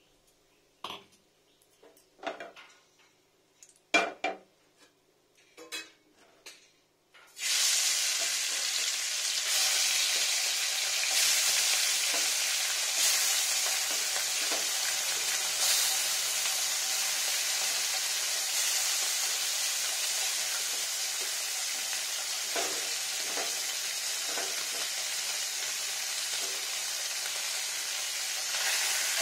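A few light clicks and knocks, then about seven seconds in a sudden steady sizzling as a batch of small turmeric-coated bata fish goes into hot oil in a frying pan and keeps frying.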